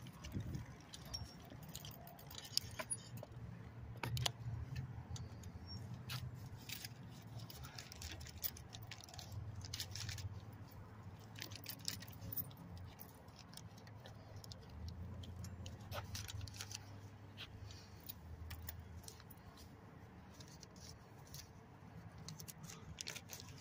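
Bicycle in motion: irregular light metallic jingling and clicking over a low rumble.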